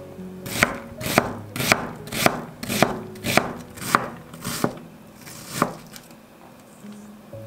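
Chef's knife chopping onion on a wooden cutting board: about nine sharp knife strokes, roughly two a second, stopping about six seconds in.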